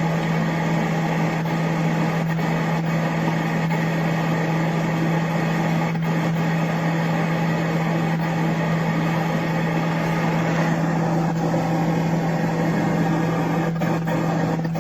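Panasonic inverter microwave oven running: a steady low electrical hum with a noisy rush over it.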